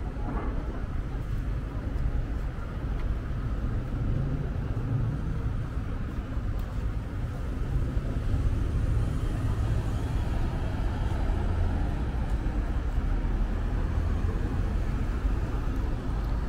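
City traffic: a steady low rumble of motor vehicles passing on the street.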